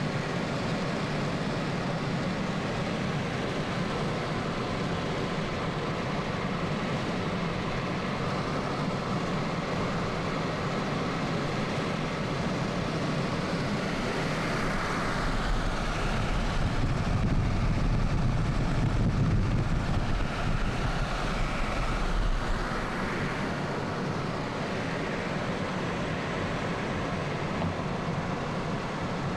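Steady road and engine noise heard inside the cabin of a car driving along a highway, growing a little louder with more low rumble for several seconds in the middle.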